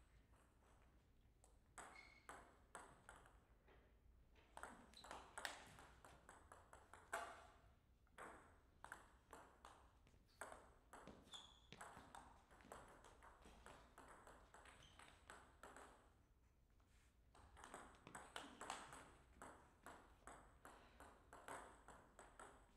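Table tennis ball being hit back and forth in rallies, a quick series of sharp clicks as it strikes the bats and bounces on the table, with short pauses between points.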